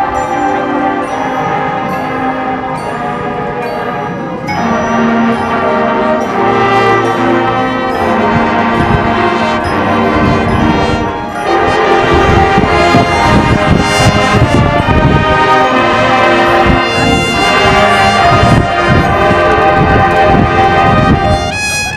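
High school marching band playing: full brass sections with drumline. The music grows louder about four seconds in, and heavy drum hits drive it from about halfway.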